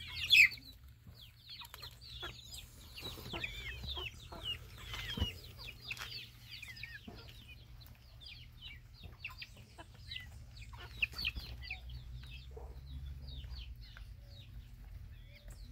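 A flock of chicks and young chickens peeping and chirping as they forage: many short, high, falling peeps overlapping, with the loudest near the start.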